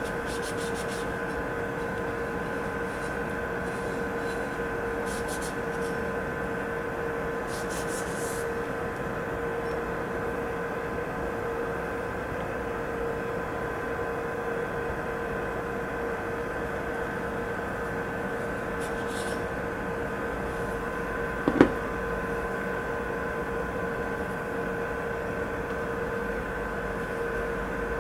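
A steady hum with several held tones runs throughout. Over it come a few faint, brief rustles of a paper towel wiping a Glock 43 pistol slide, and about three-quarters of the way through there is one sharp click.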